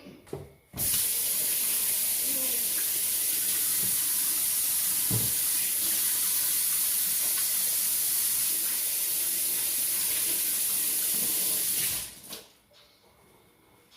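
Kitchen tap running into a sink for about eleven seconds: a steady hiss of water that starts abruptly about a second in and stops near the end.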